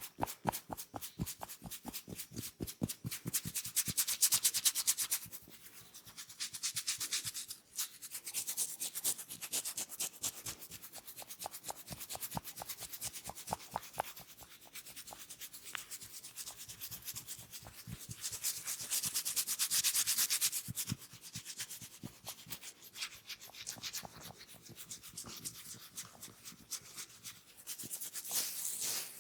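Hands massaging a person's head: rapid rhythmic strokes, several a second, with stretches of brisk rubbing that grow louder around four seconds in and again near twenty seconds.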